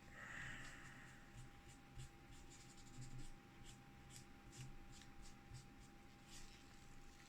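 Faint rubbing and scratching of paper wiped in short strokes over a graphics card's GPU die with alcohol, clearing off dried thermal paste. There is a brief hiss near the start.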